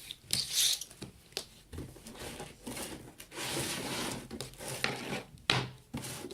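Close handling noises from kinetic sand play: rubbing and scraping with several light knocks, and a longer stretch of scraping a little past the middle.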